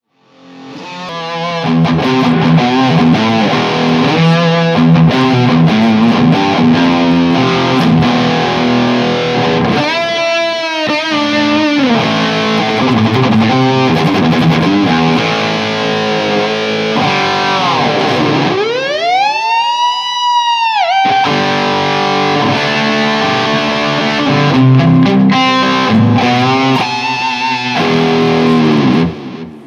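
Heavily distorted electric guitar riffing, a Schecter Banshee with EMG 81/85 pickups through a Hughes & Kettner Tubeman Plus tube preamp, an ENGL 2x50 EL34 tube power amp and a 2x12 cabinet with Vintage 30 speakers. Fast chugging metal riffs with pitch dives about ten seconds in, and near the middle a deep dive followed by a high rising squeal; the playing stops abruptly near the end.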